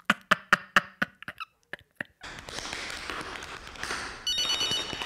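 A man laughing out loud in a string of sharp bursts over the first second or so. After a short gap comes a soundtrack of tap-dance shoe taps on a wooden floor, with a short electronic ringing tone near the end.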